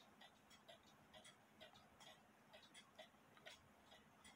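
Faint, steady ticking of a mechanical pendulum clock, a little over two ticks a second.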